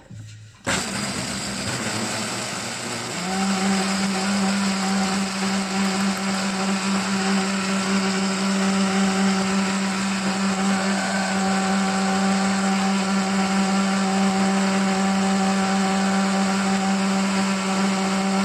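A countertop blender switches on just under a second in and runs steadily, blending soaked hemp seeds with water into hemp seed milk. About three seconds in, its sound settles into a strong even hum.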